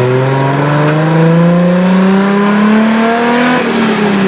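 Turbocharged Nissan RB20DET straight-six accelerating hard, its engine note climbing steadily with a rising turbo whine. About three and a half seconds in, the throttle is lifted and the note falls away, with the boost venting back through the turbo as compressor flutter because the blow-off valve is not connected.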